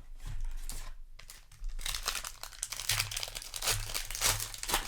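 Crinkling of a foil booster-pack wrapper being handled, a dense run of quick crackles that grows busier from about two seconds in.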